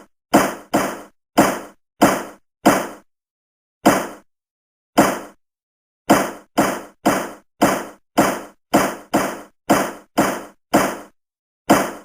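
Judge's gavel striking its sound block over and over: about twenty sharp knocks, each dying away quickly, irregularly spaced, with a pause near the middle and then a quicker run of blows.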